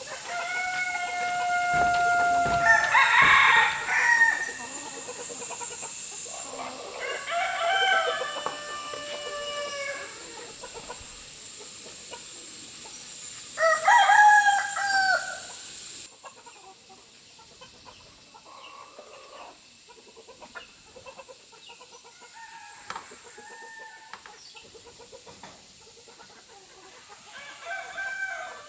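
Roosters crowing several times, with loud drawn-out calls whose pitch bends down at the end, over a steady high-pitched hiss. About halfway through the hiss stops and the level drops suddenly, leaving fainter crowing and clucking.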